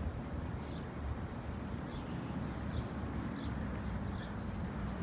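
Footsteps on a paved path at a steady walking pace, about one step every 0.7 seconds, over a low steady rumble of wind or distant traffic.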